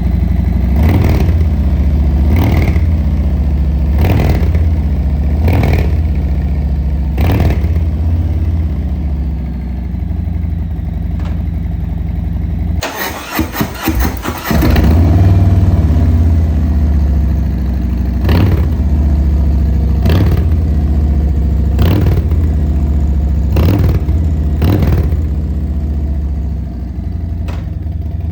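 Harley-Davidson V-twin engine running loud through a Pazoma aftermarket exhaust, a deep steady rumble with throttle blips about every one and a half seconds. About halfway through, the rumble drops out for a second or two with a rapid clatter, then comes back.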